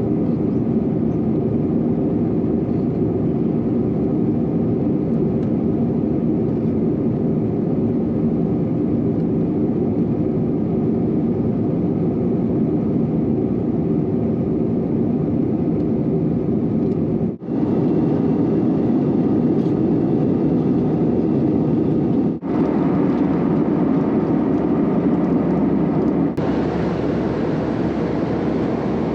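Steady cabin noise of an Airbus A321 airliner in flight, an even low rush of jet engines and airflow heard from a passenger seat. It is broken by three brief dropouts, about 17, 22 and 26 seconds in.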